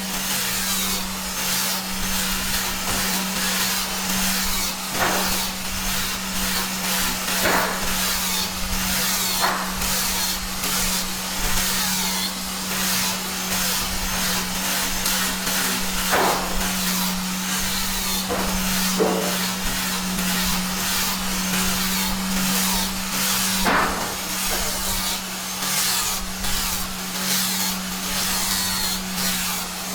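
Power tool working wood: a steady motor hum under dense rasping noise broken by many short strokes.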